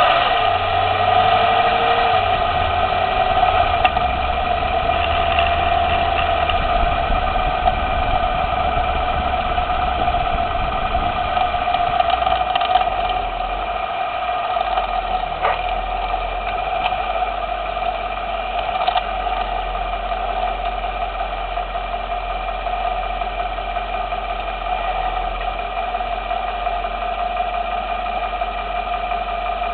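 2010 Lexus LS 460L running with a steady hum, with a few sharp clicks from the front suspension in the second half. The clicks are the suspension fault the owner suspects lies in the outer tie rod, sway brace or steering knuckle.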